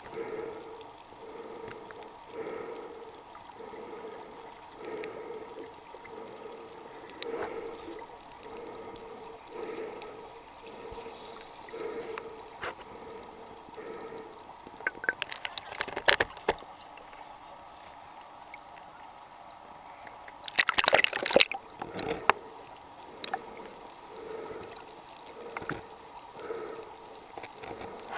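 Muffled water sound picked up by a camera held underwater in shallow sea, with a soft swishing pulse roughly once a second. Two short bursts of louder splashing break in, about halfway and about three-quarters of the way through.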